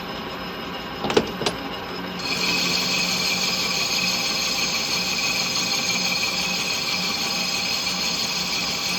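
Metal lathe taking a dry facing cut across a cast-iron classic Mini clutch backplate with a large carbide insert, over the steady hum of the machine. Two sharp clicks come about a second in. From about two seconds the cut grows louder and steady, with a high-pitched whine.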